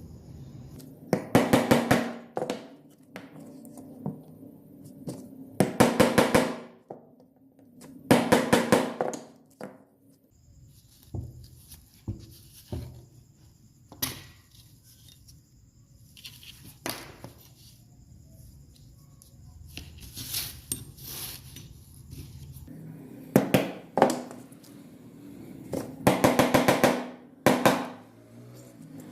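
Hand work on the metal of an old pocket knife: several bursts of about a second of rapid, evenly spaced strokes with a slight metallic ring, separated by quieter scraping and single clicks.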